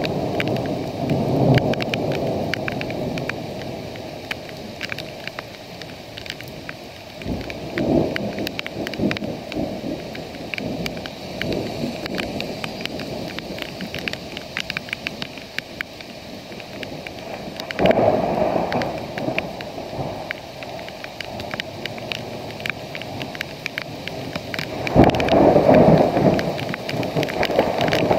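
Steady rain falling, with many sharp ticks of drops striking close by. Low rumbles swell up several times and are loudest near the end.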